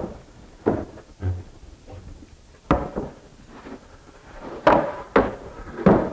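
Wooden shelf boards knocking and clattering against each other as they are sorted through and lifted: about six separate sharp knocks, each with a short ring.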